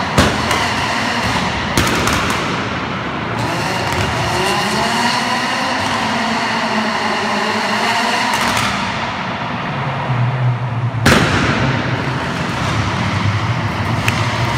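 Citroën Saxo rallycross car's engine revving up and down, then settling to a steadier low note, with three loud gunshot-like bangs: right at the start, about two seconds in, and the loudest about eleven seconds in.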